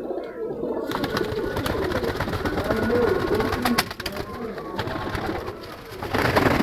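A flock of domestic pigeons cooing in a loft, their low calls overlapping throughout, with rustling from about a second in and a louder rustling burst near the end.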